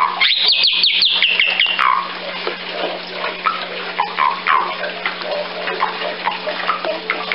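Bali myna calling: a quick run of about seven high notes, each falling in pitch and ending in a lower downward slur, over in the first two seconds; then scattered shorter, softer calls over a steady rushing hiss.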